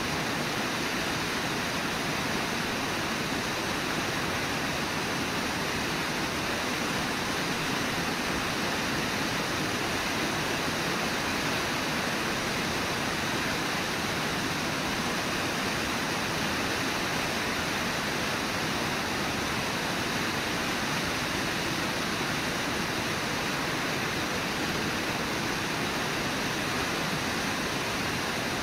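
Whitewater of the Brooks River rushing steadily below the falls, an even, unbroken roar of churning water.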